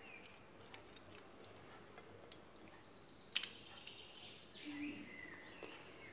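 Faint birds chirping in the background, with a single sharp click a little over three seconds in.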